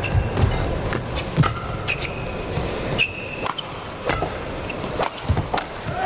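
Badminton rally: sharp racket strikes on the shuttlecock and footfalls, with short high squeaks of court shoes on the mat.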